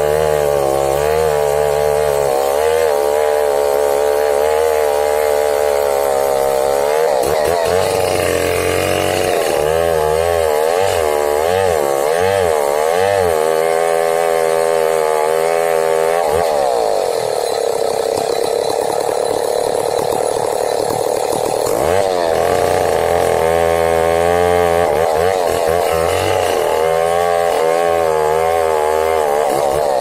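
Two-stroke gasoline chainsaw at full throttle, cutting deep into a large tree trunk. Its engine pitch wavers up and down again and again as the chain loads in the cut, and holds steady for a few seconds in the middle.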